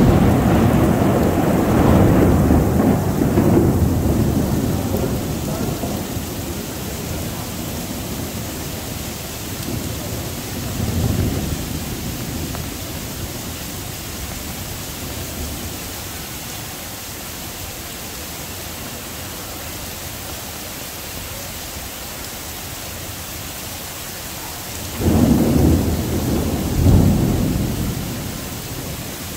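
Heavy downpour hissing steadily, with thunder: a loud clap at the start rumbling on for several seconds, a softer rumble about ten seconds in, and another thunderclap with a rolling rumble near the end.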